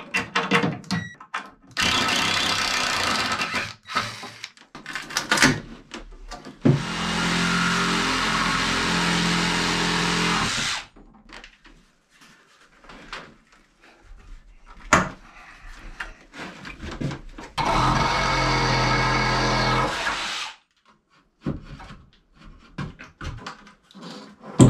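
Reciprocating saw cutting through wall framing in three runs, the longest about four seconds. Between the cuts come sharp knocks and clatter as the old stud wall is taken down.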